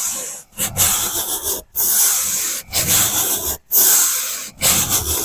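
Hand sander with 80-grit drywall paper sanding dried joint compound in slow, long back-and-forth strokes, about one stroke a second, with a brief break at each change of direction.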